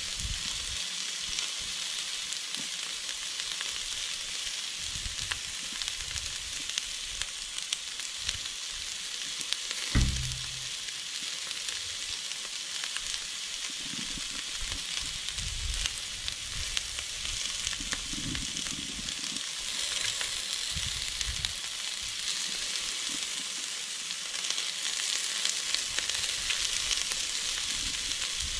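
Sliced bell peppers and onion sizzling in olive oil on a Blackstone 22-inch griddle: a steady crackling sizzle. A single dull thump about a third of the way through is the loudest moment.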